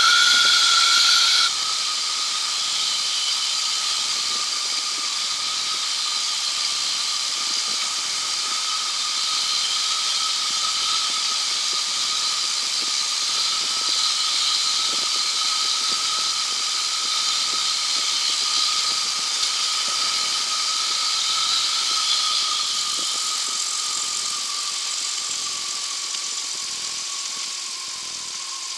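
A microlight trike's Rotax 912ULS engine and propeller heard from the cockpit, a steady high whine over rushing air hiss, during the final approach and landing. The whine drops a little about a second and a half in, then sinks slowly in pitch, and the sound fades near the end as power comes off.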